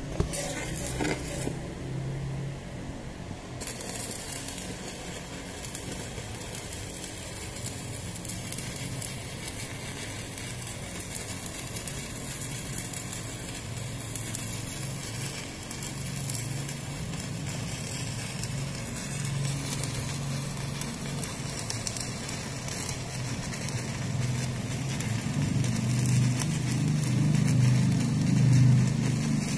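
Shielded metal arc (stick) welding arc crackling and sizzling steadily as the electrode runs a bead along a butt joint, with a low hum underneath. It gets louder near the end.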